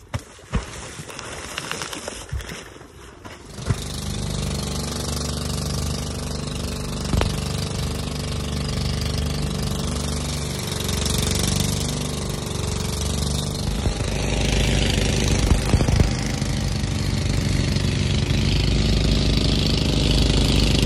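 A fishing boat's engine comes on about four seconds in and runs steadily, getting louder a little past the middle. Before it, a few knocks.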